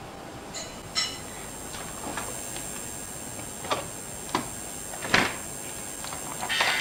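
Kitchen cupboard and drinking glasses being handled: a few separate knocks and clinks, the first about a second in with a brief ringing. Music comes in near the end.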